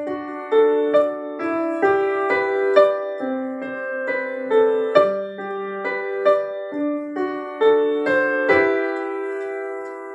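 Piano music played through a homemade soundbar built from a Vizio soundbar's own drivers and tweeters in a wooden enclosure: a melody of single struck notes, about two a second, with little deep bass.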